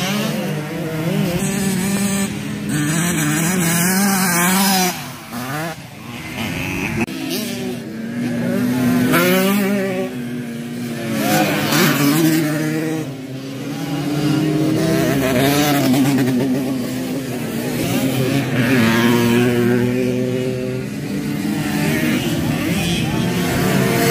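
Several 50cc racing motorcycles running at high revs, their engine notes overlapping and rising and falling in pitch as they accelerate and pass.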